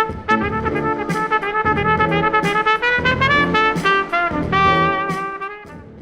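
Trumpet playing a melody of short detached notes, then sliding up about three seconds in to a long held high note that fades near the end, over lower sustained notes underneath.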